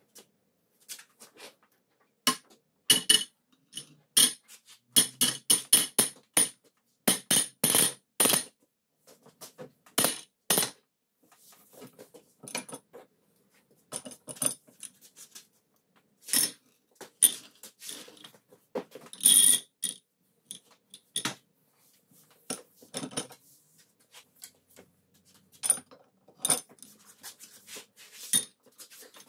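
Irregular sharp metallic knocks and clinks of hand tools and steel parts while a seized hoist spindle is being worked on and dismantled. The knocks come in quick runs with short pauses between.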